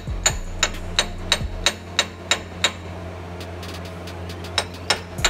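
A steel hammer strikes the differential's pinion flange about three times a second, metal on metal, each blow ringing, driving the flange back onto the pinion. The blows stop a little under three seconds in and start again near the end.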